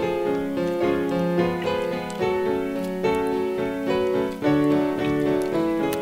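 Piano music: a steady run of notes with chords.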